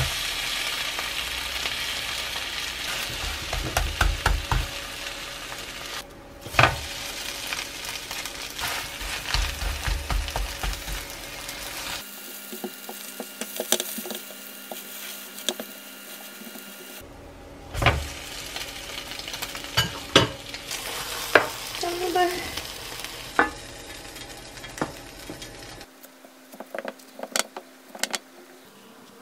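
Rolled egg omelette with ham frying and sizzling in a rectangular nonstick pan, with a spatula tapping and scraping as it presses the roll into shape. A sharp thump right at the start as the roll is flipped over onto the pan, and scattered spatula knocks near the end.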